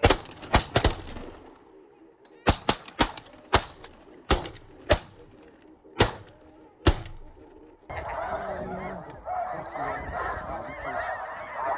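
Volley of about a dozen shotgun blasts from several hunters in the first seven seconds, some fired in quick pairs. From about eight seconds on, a large flock of snow geese honks and calls steadily.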